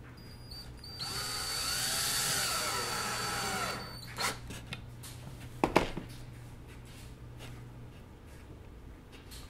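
Cordless drill driving a screw through a metal bracket into a wooden post for about three seconds, its motor pitch rising and falling with the trigger. A couple of sharp knocks follow, the second the loudest.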